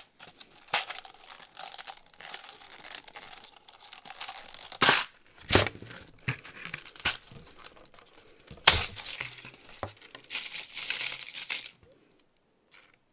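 Small plastic bag of metal mixing balls being handled and opened, crinkling unevenly with a few sharp clicks and taps among the rustle. It stops about a second before the end.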